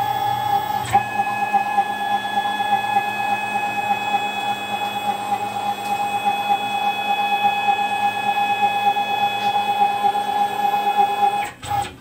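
Axis drive motor of a Tormach 15L slant-bed CNC lathe whining steadily as the gang tool plate traverses toward the spindle. The tone shifts about a second in and the whine stops shortly before the end.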